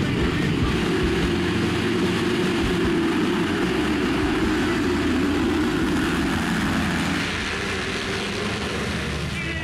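A full field of motocross bikes accelerating hard off the start line together: many engines running at high revs, easing off slightly near the end as the pack moves away.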